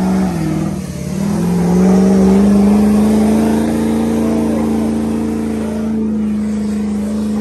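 Pickup truck engine revved hard and held at high revs during a burnout, with the tire spinning in place. The revs sag about a second in, then climb and hold steady at a high pitch.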